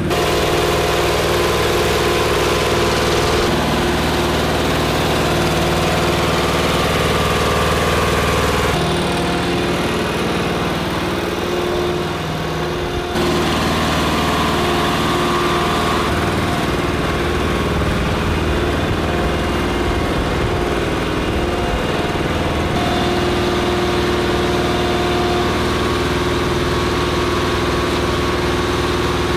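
An engine idling steadily. Its tone changes abruptly several times, like cuts between separate takes.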